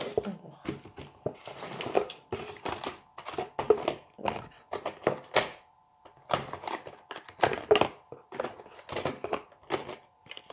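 Cosmetic samples and their packaging being handled and set down: an irregular run of knocks, taps and crinkling, with a few louder knocks.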